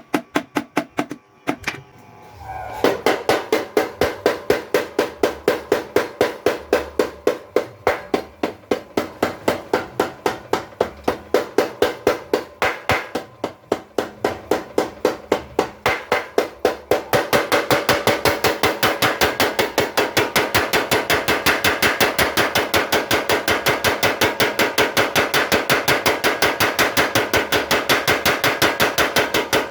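Blacksmith's mechanical power hammer running, its ram striking in rapid, evenly spaced blows. After a short break near the start it picks up, and about halfway through the blows become louder and closer together.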